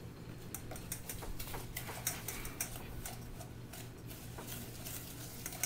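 Wooden spoon stirring egg yolks and sugar in a stainless steel mixing bowl: irregular light clicks and taps of the spoon against the metal, several a second, over a low steady hum.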